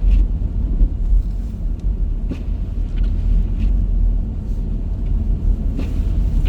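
Steady low rumble of a car driving, road and engine noise heard from inside the cabin, with a few faint light ticks.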